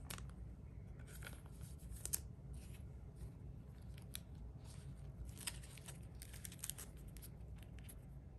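Faint rustling and a few light clicks of a stack of trading cards in clear plastic sleeves being picked up and handled.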